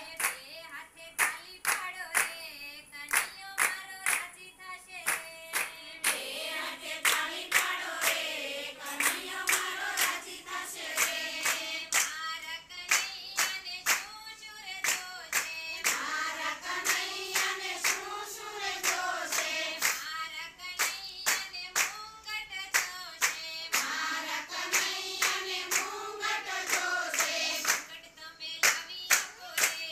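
A group of women singing a Gujarati devotional kirtan in unison while clapping their hands in a steady rhythm, about two claps a second. Near the end the singing drops back and the clapping stands out.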